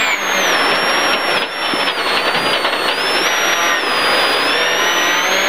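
Ford Sierra Cosworth rally car's turbocharged four-cylinder engine heard from inside the cabin, working hard on a snowy stage. The revs fall over the first two seconds, then climb again about three seconds in and stay high.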